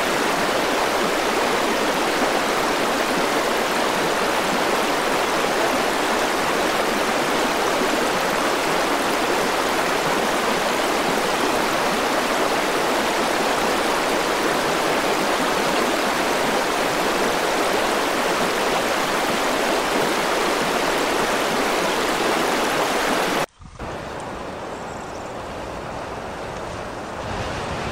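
Shallow river water running steadily, an even rushing sound. It cuts off abruptly near the end, replaced by a quieter rushing noise with some low rumbling.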